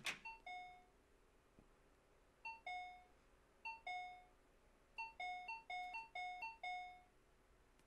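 Shop doorbell chime, a 'bing bong' of a high note dropping to a lower one, rung over and over by someone pressing it again and again, coming faster and faster in the second half. Faint, heard as cartoon soundtrack.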